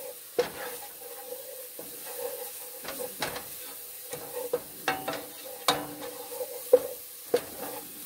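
A wooden spoon stirring chopped onions and garlic sautéing in a metal pot: a steady sizzle with irregular sharp knocks and scrapes as the spoon hits the pot's sides. The onions have cooked soft.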